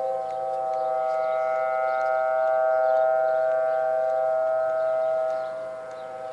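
Two outdoor warning sirens sounding together, an American Signal T-128 and a Federal Signal Thunderbolt 1000T, holding a loud, steady-pitched chord of several tones during a siren test. The sound drops a little quieter about five and a half seconds in.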